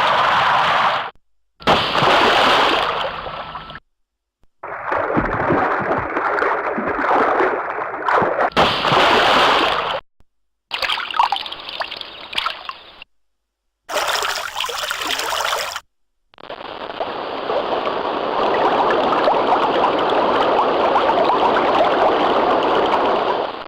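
A run of separate water sound effects, about six short clips cut one after another with brief silences between: splashing, trickling and running water, the last clip a longer steady rush of water.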